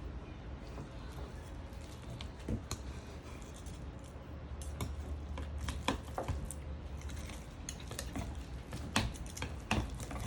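Knife tapping irregularly on a cutting board while a tomato is cut into small dice, over a steady low room hum.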